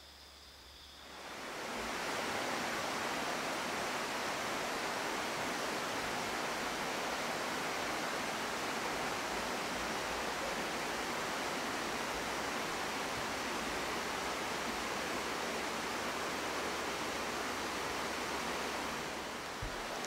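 A river rushing steadily, an even noise of flowing water that fades in over about a second near the start.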